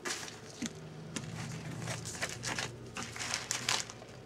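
Plastic packaging crinkling and rustling in irregular bursts as small items are handled, over a faint steady low hum.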